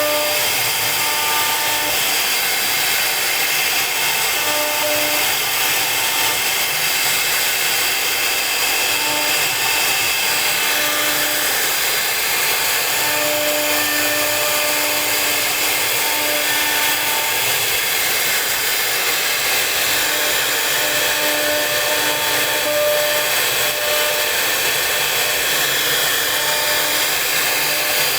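CNC router spindle running steadily while cutting wood, with a pitched hum that comes and goes at short intervals.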